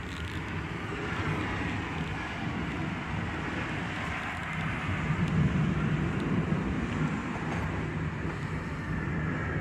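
Steady road traffic noise with no distinct events, swelling a little about five seconds in.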